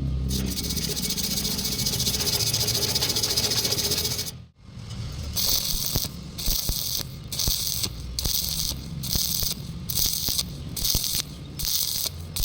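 Welding arc crackling steadily for about four seconds. After a short break it starts and stops in regular short bursts, a little more than one a second, as in stitch welding.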